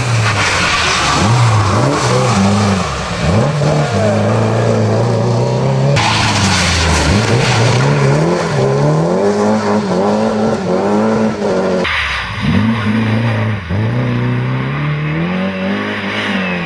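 Ford Escort Mk2 rally car at full attack: the engine revs hard, its pitch climbing and dropping with gear changes and lifts for the corners, over tyre and gravel noise. The sound changes abruptly about 6 and 12 seconds in, where one pass cuts to the next.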